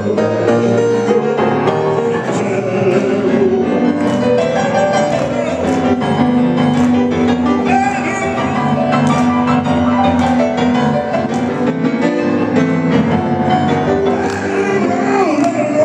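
Live acoustic piano playing a blues-style number with a man singing along at a microphone, including a long held note about halfway through.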